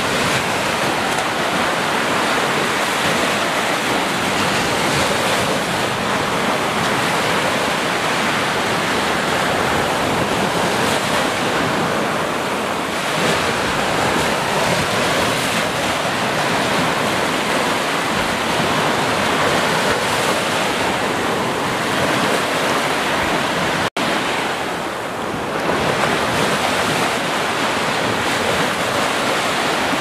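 Gentle sea surf: small waves breaking and washing up a sandy beach in a steady, continuous rush, with a split-second break in the sound near the end.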